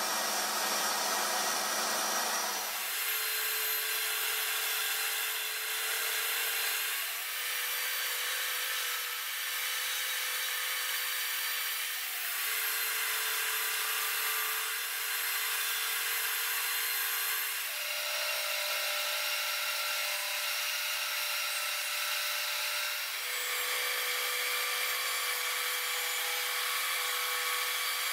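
Table saw ripping thin strips of wood along the fence: a steady whine of the spinning blade cutting wood. There are several passes one after another, with a slight dip and a shift in pitch every five seconds or so.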